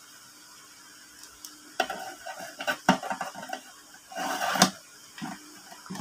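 Clear plastic parts of a hang-on-back aquarium filter being handled and fitted together: scattered plastic clicks and knocks starting about two seconds in, with a longer rattle a little after four seconds that ends in the loudest click.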